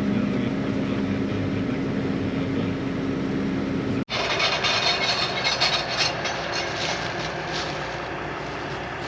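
Heavy farm machinery running, heard from inside the cab: a steady engine drone with a low hum. About four seconds in it cuts off abruptly and gives way to a noisier, hissier machine sound.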